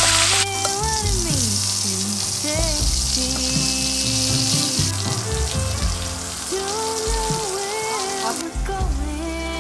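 Steak sizzling on a hot griddle plate. The hiss is loudest at first, drops sharply about half a second in, and thins to a faint sizzle that stops near the end. Background music with a melody plays over it.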